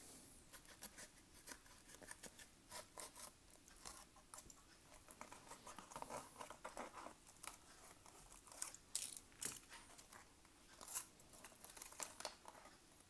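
Faint snipping of scissors cutting along the side of a foil-laminate MRE cracker pouch, with crinkling of the pouch and scattered sharp clicks. Near the end the crackers are pulled out of the pouch onto a plastic tray.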